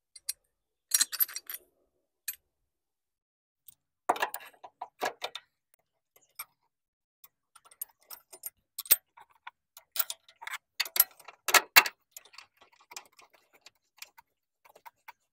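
Metallic clicks, clinks and short rattles from the Toyota Camry's passenger upper engine mount (dog bone) and its bolts being fitted by hand. They come in bursts: about a second in, again around four to five seconds in, and most densely from about eight to twelve seconds in.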